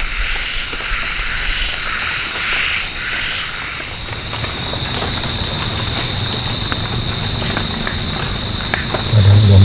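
Night insect chorus, crickets chirring in one steady high tone, with a second hissing layer that stops about four seconds in and scattered small clicks. Near the end a brief, loud low rumble cuts in.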